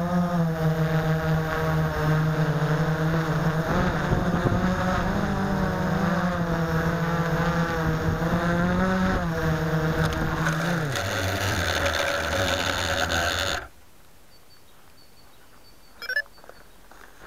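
Blade 350 QX quadcopter's four brushless motors and propellers running, heard from the camera mounted on the craft: a steady pitched hum that wavers slightly, drops lower after about ten seconds as it comes down, then cuts off suddenly as the motors stop. A single faint click follows.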